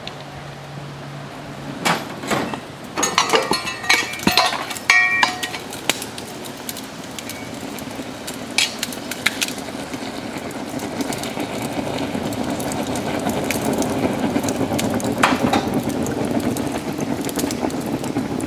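Steel rail-welding tools and fittings clinking and ringing against each other for a few seconds. After that a steady rushing noise builds up and holds.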